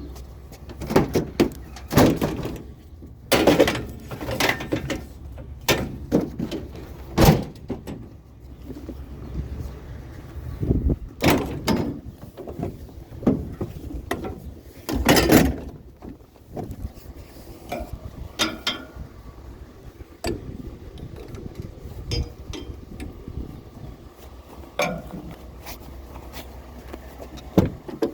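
Scrap being handled and shifted around in a pickup load: a long run of irregular knocks, bangs and clatters, the loudest a few seconds in and again at about 7, 11 and 15 seconds, over a low steady rumble.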